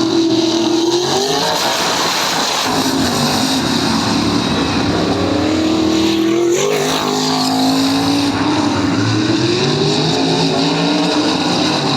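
Tin-top saloon race cars' engines running loud, the pitch climbing and dropping back several times as they accelerate and change gear. There is a brief rush of noise about six and a half seconds in.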